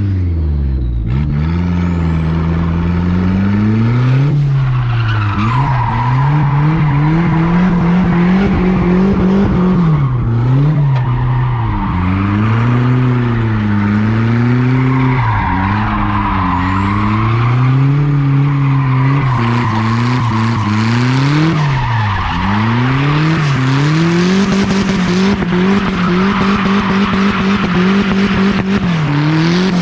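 Turbocharged Nissan D21 Hardbody pickup with a welded rear differential drifting. The engine revs rise and fall over and over as the rear tires spin and squeal on the pavement.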